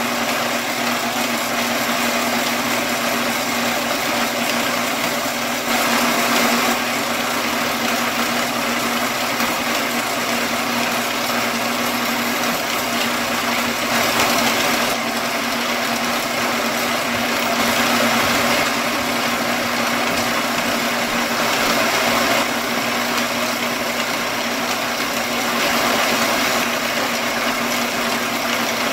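Metal-cutting band saw running, its blade cutting through a metal bar: a steady machine hum with a constant low tone and the hiss of the teeth in the cut, swelling slightly louder every few seconds.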